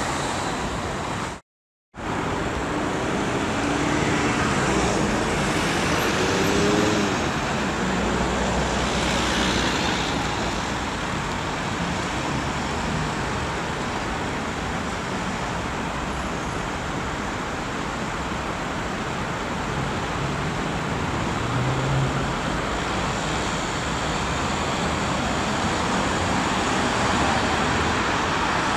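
Cars and police vans of a motorcade driving along a city street: engine and tyre noise over steady traffic, with the sound dropping out completely for about half a second near the start.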